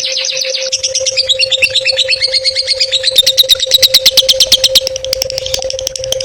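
A songbird sings a rapid run of varied chirping notes. About halfway through, it breaks into a fast, even trill of sharp chirps, roughly eight a second, before easing back into softer chatter. A faint steady hum runs underneath.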